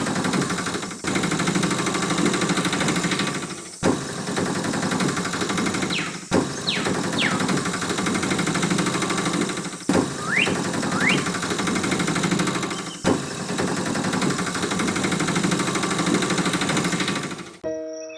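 An engine running steadily at idle, broken by abrupt cuts every few seconds, with a few short sliding whistle-like chirps over it.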